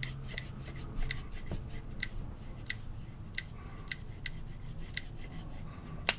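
Bestechman Ronan folding knife's crossbar lock and blade clicking as the knife is worked open and shut over and over: about a dozen sharp clicks, roughly one every half second. The lock is being tested because it sticks and won't release with one hand.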